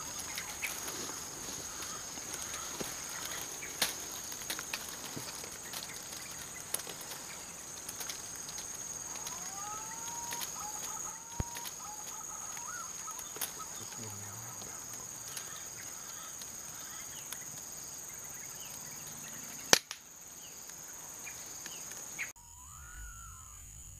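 Outdoor ambience with a steady high-pitched hum and a few short bird calls around the middle. Small scattered clicks run through it, and one sharp click near the end is the loudest sound.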